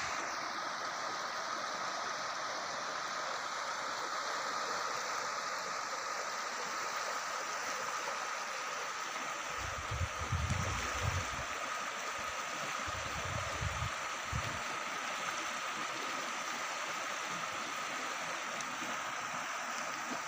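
Swollen, muddy river in flood rushing past an eroding sandy bank: a steady, unbroken rush of water. Two short spells of low rumbling come about halfway through.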